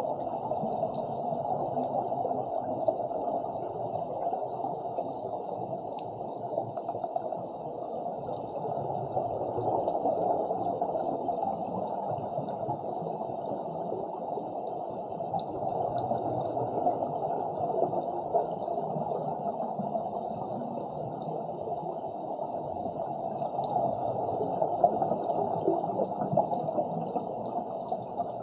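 Muffled underwater rushing and gurgling heard through an action camera's housing below the surface, from scuba divers' exhaled bubbles. It swells and eases every several seconds.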